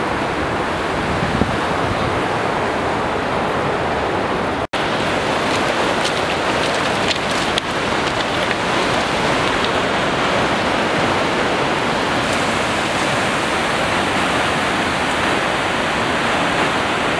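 Mountain river and waterfall rushing: a loud, steady wash of water noise, with a brief gap about five seconds in.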